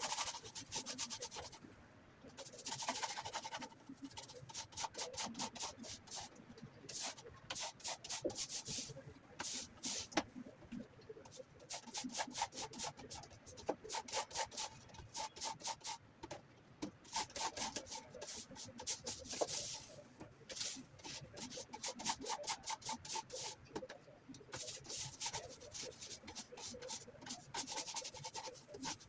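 Hand scrubbing in bursts of quick back-and-forth strokes, several a second, with short pauses between the bursts.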